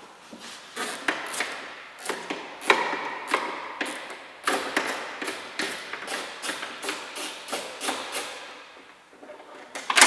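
A 10 mm socket wrench working the exterior door handle's fasteners inside a car door shell. It makes sharp metallic clicks and knocks, irregular at first, then a run of evenly spaced clicks about three a second through the middle.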